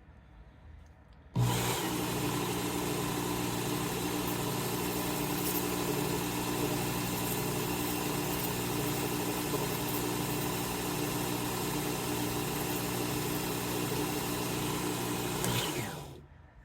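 Work Sharp Knife and Tool Sharpener's belt motor switching on about a second and a half in, running steadily with a hum and belt hiss, then switching off near the end and winding down. The pizza wheel is being held flat on the belt to knock off the burr raised by sharpening.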